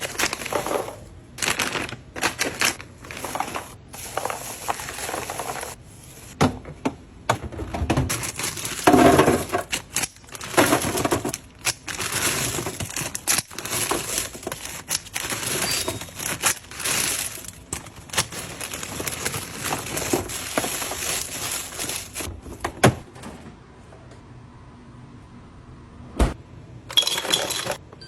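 Irregular clicks, knocks and clatters of small hard objects being handled and set down, with bursts of rustling, quieter for a few seconds near the end.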